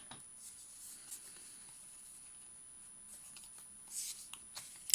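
Faint rustling and crinkling of a Pokémon card booster pack's foil wrapper and cards being handled, with a few light clicks and a brief louder crinkle about four seconds in.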